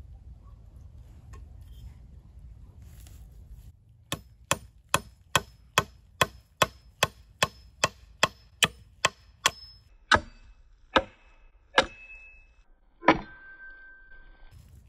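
A hatchet used as a hammer, knocking on a wooden shelter-frame pole. About a dozen quick, even blows, a little over two a second, start about four seconds in, then four slower, heavier blows, the last ones ringing briefly.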